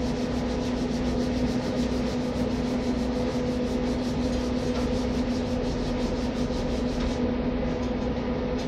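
Steady machine hum over an even rushing noise, with faint regular pulsing in the hiss. The highest part of the hiss drops away about seven seconds in.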